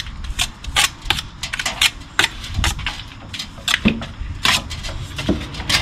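Steel brick trowel scraping and tapping on a mortar board while mortar is cut and loaded: a quick, irregular run of sharp clicks and short scrapes.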